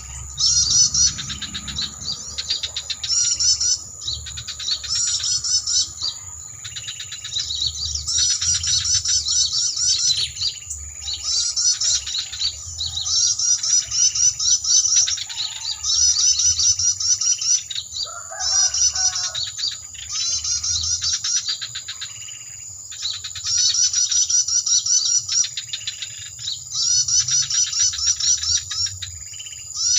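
Homemade bird-lure call (suara pikat) played from an MP3 player. Bursts of rapid high chirping trills, each about a second long, repeat every second or two over a steady thin high tone. Briefly near the middle a different, lower call comes in.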